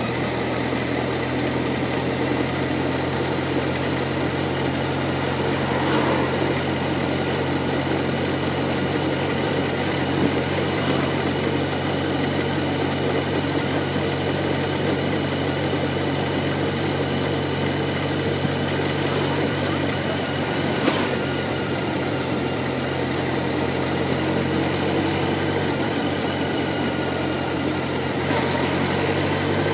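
BMW K1100LT motorcycle's inline four-cylinder engine running steadily at a low, even road speed, a constant hum with road noise over it.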